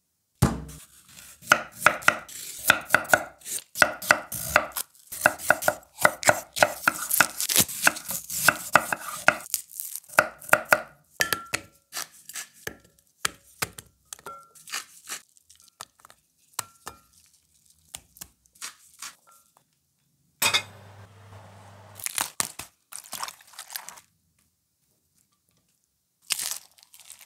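Knife chopping vegetables on a wooden cutting board, a quick run of chops for about the first ten seconds, then sparser taps and clinks as vegetable slices are laid into a glass bowl. About two-thirds through comes a couple of seconds of steady hiss with a low hum, then a few more light clicks.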